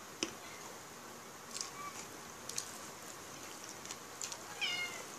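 Soft clicks and smacks of fingers pulling apart grilled chicken, then, near the end, a cat meows once, briefly and falling in pitch.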